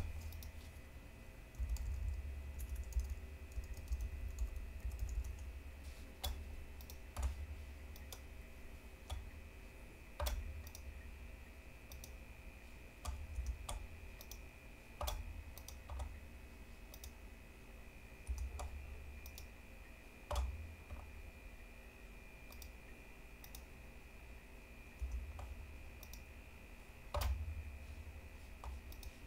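Faint, scattered computer mouse clicks, singly and in small groups a few seconds apart, over a faint steady hum and low bumps.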